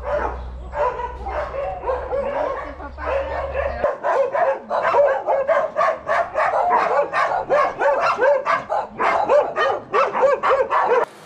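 Several dogs barking in quick, overlapping succession, the barking growing denser from about four seconds in. A low steady hum underneath stops about four seconds in.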